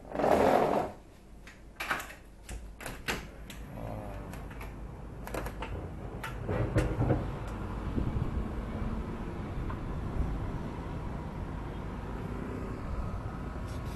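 A loud rush of noise lasting about a second, then several sharp knocks and clicks from handling and a door. From about halfway on comes a steady hum of distant town traffic, heard from a high balcony.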